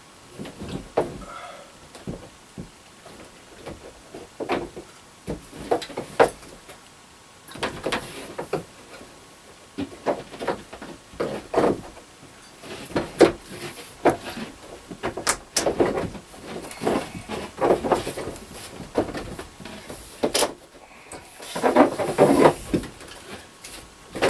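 Lightweight prefab shower-stall panels knocking and rattling in irregular bumps as the top piece is pushed and worked down onto the stall walls, with a busier stretch of rattling near the end.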